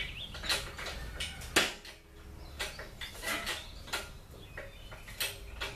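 Scattered metal clanks, clicks and knocks from a shop engine hoist being worked by hand, with one sharp clank about a second and a half in.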